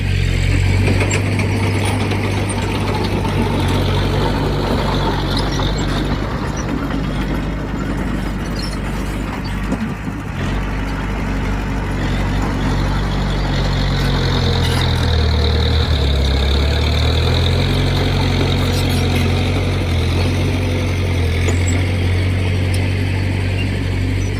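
Heavy diesel engine of earthmoving equipment running steadily under load. Its pitch drops for a couple of seconds about two-thirds of the way through, then picks back up.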